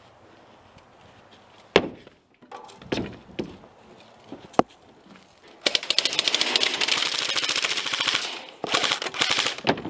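Airsoft rifle firing on full auto: a few sharp single knocks, then a long rapid burst of shots from a little past halfway and a second shorter burst near the end.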